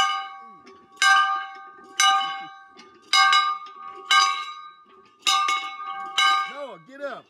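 A handheld bell rung as a wake-up call, struck about once a second. Each stroke rings and fades before the next, about seven strokes in all. A short voice sounds near the end.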